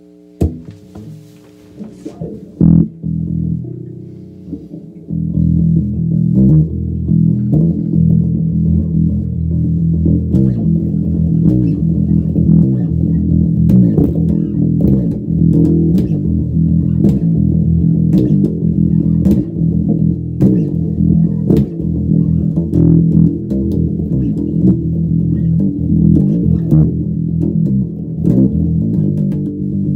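Multi-string electric bass playing a metal riff: a few scattered notes at first, then, about five seconds in, a continuous riff of steadily picked notes.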